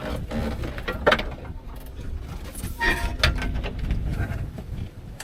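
Irregular knocks and clatter from hand tools and parts being handled while the excavator seat is unbolted, with the loudest knocks about a second in and around three seconds in.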